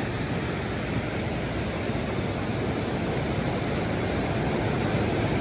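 Steady rushing of a river swollen with snow melt in flood, fast water flowing without a break.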